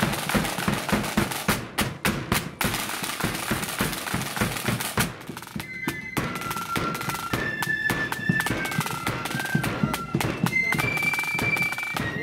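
Marching flute band: the side drums and bass drum play a dense beat, and about five seconds in the flutes come in with a high tune over the drumming.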